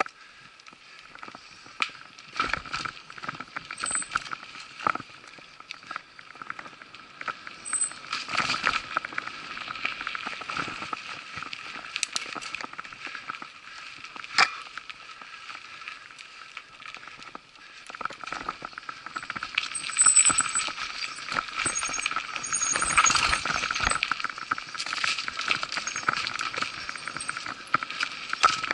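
Mountain bike rattling and clattering over a rough dirt singletrack, with many sharp clicks and a steady hum underneath, picked up by a camera mounted on the bike. The rattling grows louder about two-thirds of the way through as the bike speeds up.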